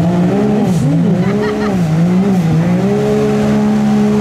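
Medium-tire mud racing buggy's engine held at a steady high pitch as it churns through a deep mud hole. The pitch sags and recovers several times in the first couple of seconds as the tires bite, then holds steady.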